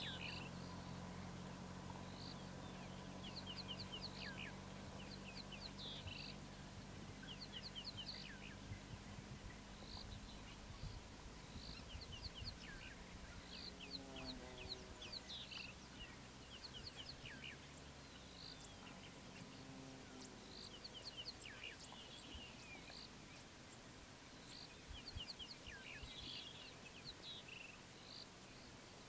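Birds calling over and over in quick groups of short high chirps, over the low steady hum of an idling vehicle engine that fades out about halfway through. Two brief, lower pitched calls come near the middle.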